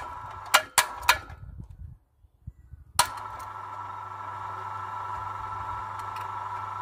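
Electric wire-rope hoist motor jogged on and off with several sharp clicks, then silent for about a second. It starts again with a click about three seconds in and runs with a steady hum, lowering the hook on its cable.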